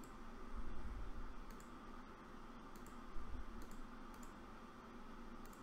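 Faint computer mouse clicks, several scattered through a few seconds, some in quick pairs, over quiet room tone.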